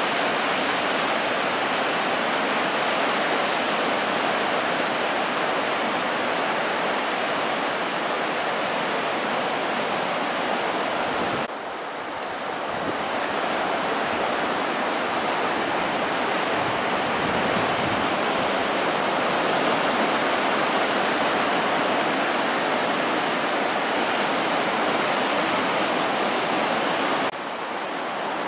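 Small surf breaking and washing onto the beach, a steady rushing noise that drops off suddenly twice, about eleven and twenty-seven seconds in, then builds back up.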